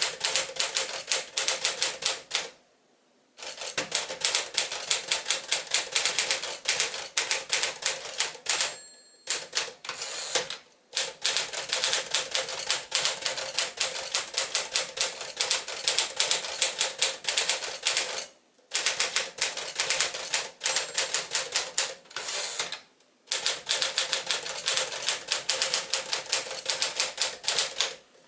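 1958 Tower Challenger manual typewriter, with Smith-Corona Clipper works inside, being typed on: fast runs of key strikes broken by a few short pauses.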